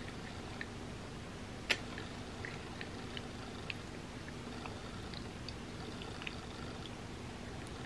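Close-up eating sounds: soft, wet mouth sounds and small clicks of chewing creamy macaroni, with one sharp clink of a metal fork against the ceramic bowl a little under two seconds in, over a faint steady hum.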